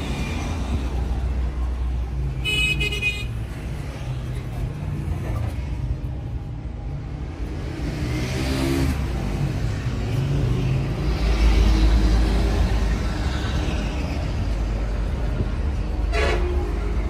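Steady low rumble of road traffic, with a short high-pitched horn toot about two and a half seconds in and another horn note near the end.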